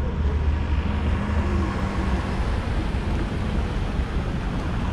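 Road traffic on a snowy, slushy street: cars and a minibus driving past close by, over a steady low rumble.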